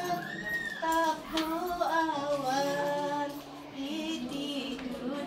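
Women's voices singing a slow melody unaccompanied, holding long notes and gliding slowly between them.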